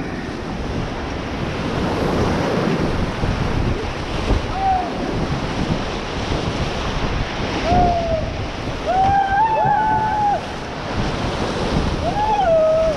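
Whitewater rapid: loud rushing, churning river water around a paddled raft, with wind buffeting the microphone. Voices cry out several times over the water, most about halfway through and near the end.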